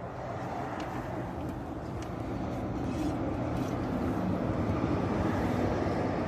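Steady low rumble of vehicle noise, an idling engine or passing traffic, slowly growing louder.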